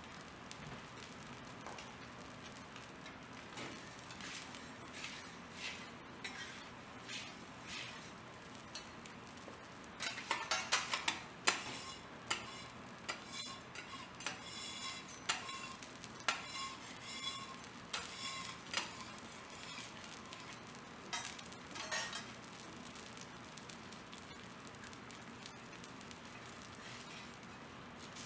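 Wagyu beef steak sizzling as it cooks. Metal cooking utensils clink and tap against the hot cooking surface, in a quick run of ringing clicks from about ten seconds in that lasts several seconds, then a few more near the end.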